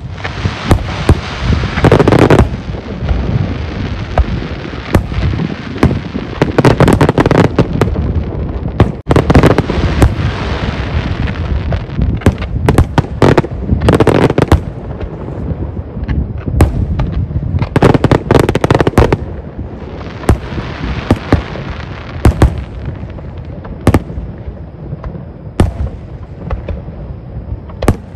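Fireworks going off in a steady barrage: many sharp bangs, some in quick clusters, over swelling stretches of crackling.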